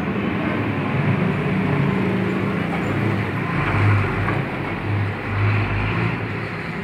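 Steady road-traffic noise with a low vehicle rumble that swells twice, about four and five and a half seconds in.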